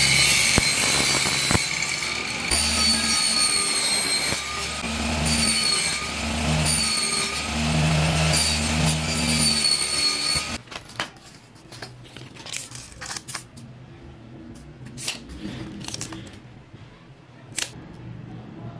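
Table saw running, its blade ringing harder in several stretches as it cuts thin 4 mm plywood into strips. It stops abruptly about ten seconds in, leaving a few light clicks and knocks from handling the wood strips.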